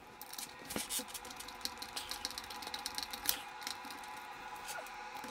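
Small precision screwdriver working the screws that hold the Bose HomeSpeaker 300's top panel: a run of irregular light clicks and scratches as the bit turns and scrapes in the screw heads, with one sharper click a little past the middle.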